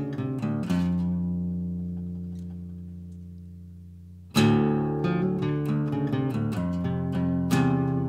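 Guild acoustic guitar played solo on a traditional Cypriot folk tune. A few picked notes end on a chord that rings and fades for about three seconds. A sharp strummed chord comes about four seconds in, followed by a quick run of picked notes and another strong accent near the end.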